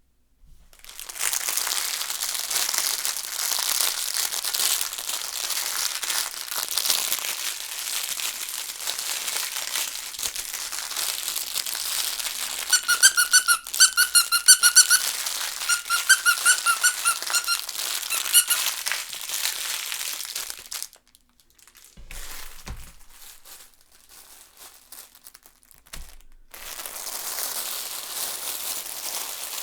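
Crinkle baby toy squeezed and handled, its crinkly filling rustling and crackling. About halfway through comes a run of quick, high squeaks. Near the end there is a short pause and some quieter handling before the crinkling starts again.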